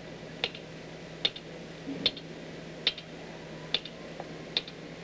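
Soft-faced mallet tapping the upper flange of an aluminum angle strip held on a V-block: about six light, sharp taps at an even pace, a little under one a second. The blows shrink the flange, curving the strip.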